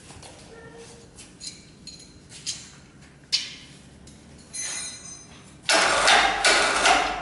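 Electric drive motor of a 1969 Kozelsky telescope equatorial mount running in short bursts as it is driven from a hand controller. There is a sharp click about three seconds in, and the loudest, longest run comes in the last second and a half.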